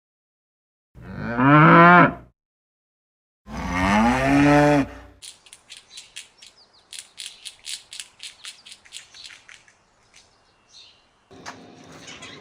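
Cow mooing twice, two long calls each rising then falling in pitch, followed by a run of quieter quick clicks, about four a second.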